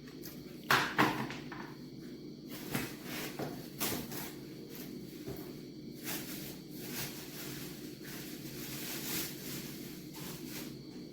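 Several sharp knocks and clicks of objects being handled, the loudest two about a second in and smaller ones a couple of seconds later.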